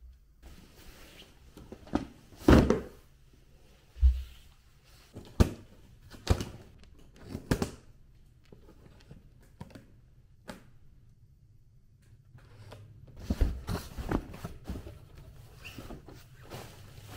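Irregular knocks and thuds, as of objects being handled and set down, about a dozen over the stretch: the loudest about two and a half and four seconds in, a lull in the middle, then a cluster of smaller knocks.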